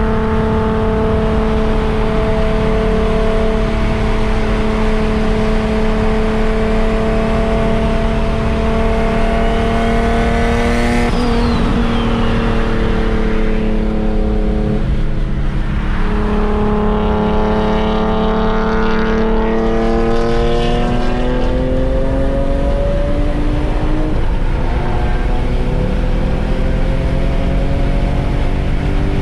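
Car engine running under load at highway speed, its pitch climbing slowly, then dipping briefly about fifteen seconds in before it climbs again, heard from inside a moving car.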